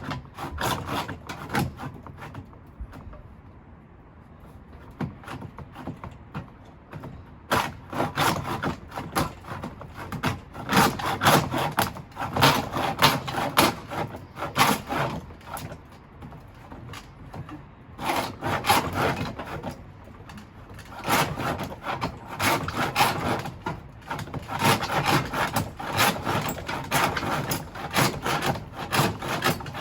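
Handsaw cutting through wood in rapid, even back-and-forth strokes, in two long runs with a short pause between.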